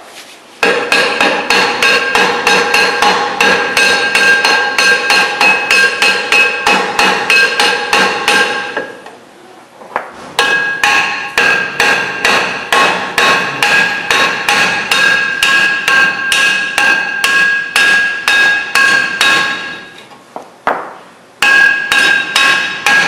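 Small hammer tapping rapidly on a seized, rusted brake drum of a 1970 VW Variant, about four blows a second in three long runs, the metal drum ringing with each blow. The tapping is meant to shake the drum loose where the brake lining has stuck to it.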